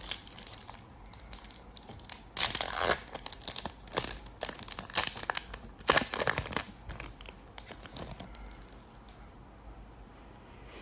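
Foil wrapper of a trading card pack being torn open and crinkled in the hands, in several crackling bursts that die down to quiet handling near the end.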